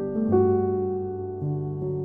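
Slow, soft piano music: held notes and chords, with new ones struck a few times.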